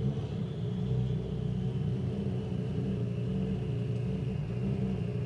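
M-Sport Ford Puma Rally1's turbocharged 1.6-litre EcoBoost engine running at low revs as the car creeps forward: a steady low rumble, with a faint high whine slowly falling in pitch.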